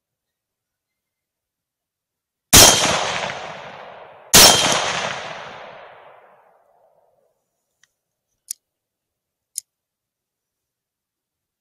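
Two rifle shots from a 6.5 Grendel, about two seconds apart, each echoing and fading away over the next two seconds. Two faint clicks about a second apart near the end.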